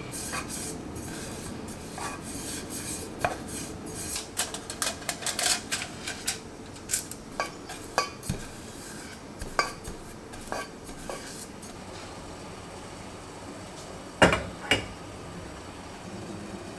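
A pastry brush tapping and scraping against the inside of a metal nonstick cake tin as butter is brushed on: a run of light clicks and taps. Two louder knocks come near the end.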